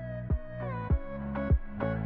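Background music: an electronic track with a steady thumping beat, a little under two beats a second, under held synth tones that slide from one pitch to the next.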